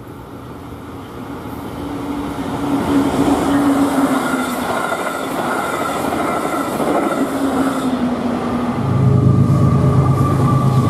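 A Brightline passenger train running past a grade crossing at speed, its wheel-and-rail rush building in loudness with faint steady tones in it. About nine seconds in, a loud, steady low drone takes over, from the FEC freight train's diesel locomotives approaching the next crossing.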